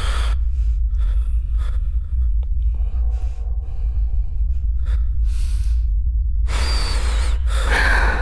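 A person's heavy, gasping breaths: several short ones spaced through the first few seconds, then two longer ones near the end, over a steady low rumble.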